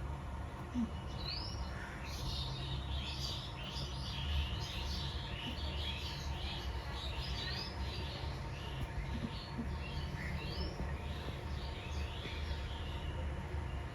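Small birds chirping and twittering over and over in short, quick rising and falling notes, over a low steady background noise.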